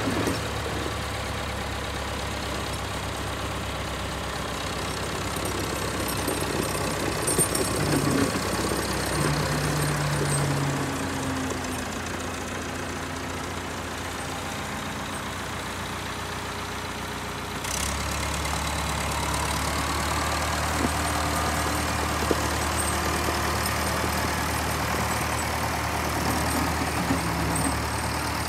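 The diesel engine of an old Volvo wheel loader running as the machine drives along a snowy road and turns. The engine note steps up and grows louder about two thirds of the way through.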